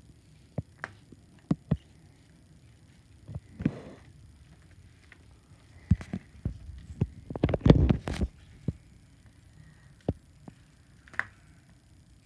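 Irregular knocks and taps of plastic action figures being handled on a tile floor, with a louder run of thumps and rustling about seven to eight seconds in.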